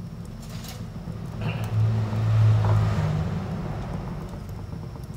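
Steady low electrical hum from an induction cooktop heating a non-stick pan of oil, swelling a little about two seconds in.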